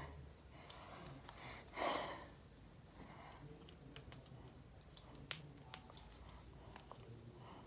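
Soft clicks and rustling of hands working at hair tangled in a hair tool. There is one louder, breathy rush about two seconds in and a sharp click a little after five seconds.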